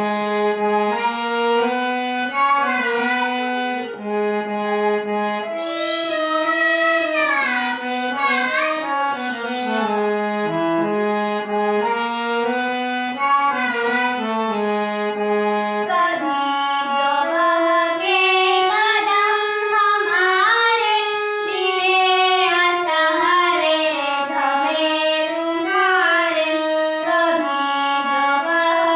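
A young girl singing a devotional prayer song with melodic instrumental accompaniment. The first half is dominated by held, stepping instrumental notes; from about halfway the voice is more prominent, with wavering, ornamented pitch.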